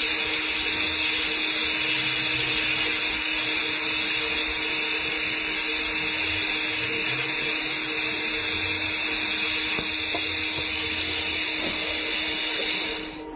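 Argon TIG welding arc on steel pipe hissing steadily with a steady low hum underneath, as filler rod is fed into the weld pool; the sound cuts off about a second before the end as the arc is stopped.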